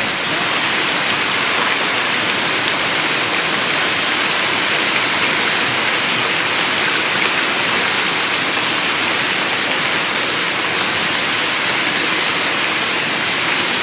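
Steady rain falling, an even hiss with a few scattered drop taps.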